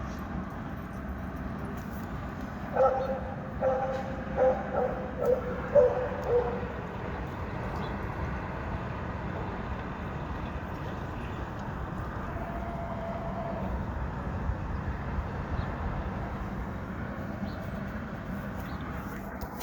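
A dog barking about seven times in quick succession a few seconds in, over the steady hum of city street traffic.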